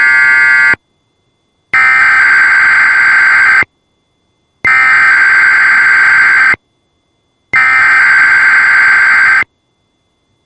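Electronic alert alarm tone sounding in four blasts with silence between them: a short first blast of about a second, then three of about two seconds each.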